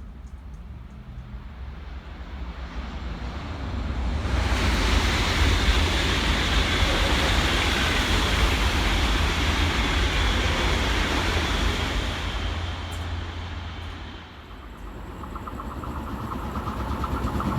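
A train passing at speed: a rushing noise that builds over about four seconds, holds loud, then fades. Near the end, another train approaches, with rising noise and a fast regular clatter of wheels on rail joints.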